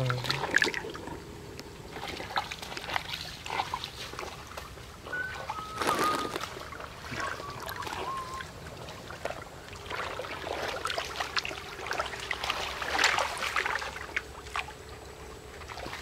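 Shallow stream water splashing and sloshing as hands work a mesh net and a plastic fish box in it, with irregular splashes over a steady trickle of flowing water.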